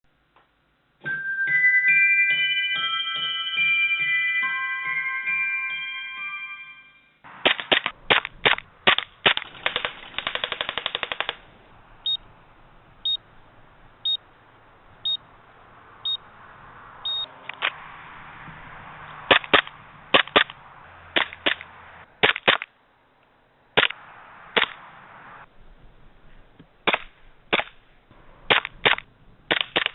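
A few seconds of music with chiming mallet-like notes, then airsoft guns shooting: a quick string of single shots, a rapid automatic burst, then shots spaced irregularly, a second or so apart.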